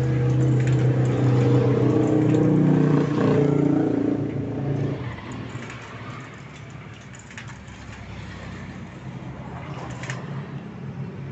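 An engine running, loud for the first few seconds and then fading away about five seconds in, followed by a few faint clicks.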